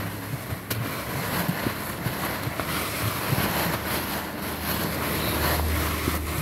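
Polystyrene foam balls rustling as a hand stirs through a container of them, a steady hiss with faint scattered ticks.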